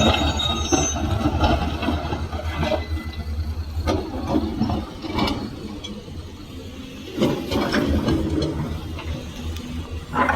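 Excavator's diesel engine running with a steady low hum, under irregular scraping and clanking. The hum drops away about halfway through.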